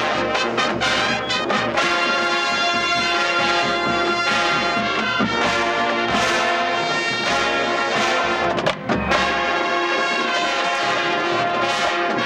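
Marching band playing a field show: held brass chords over the drum line, with a quick run of drum hits in the first couple of seconds.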